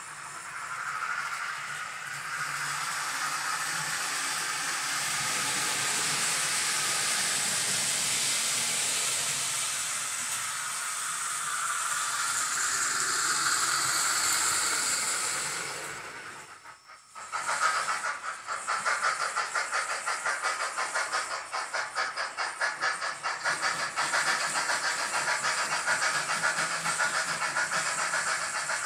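Synthesized steam-locomotive sound from a model Mantua 4-6-2's Tsunami TSU-2200 DCC sound decoder, played through its small onboard speaker. A steady steam hiss runs for about the first sixteen seconds, drops out briefly, then gives way to rapid, even chuffing.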